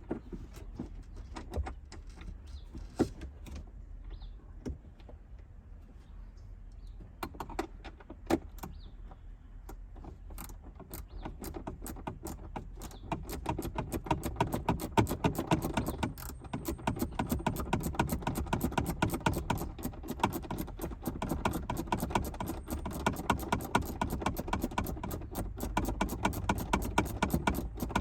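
Hand tools clicking and knocking against metal. About ten seconds in this turns into a fast, continuous ratchet wrench clicking as a bolt is run in.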